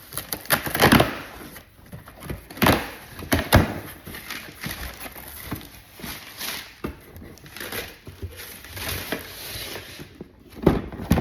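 A sealed cardboard shipping box being handled and moved about: irregular knocks, scrapes and crackling rustle of cardboard.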